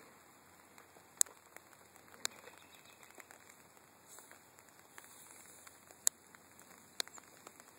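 Light rain falling: a faint steady patter with scattered sharp drop ticks, four of them louder than the rest.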